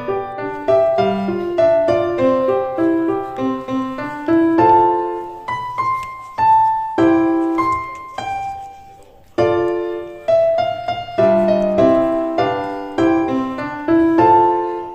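Background piano music: a gentle melody of single notes over chords, with a short lull about nine seconds in before the next phrase.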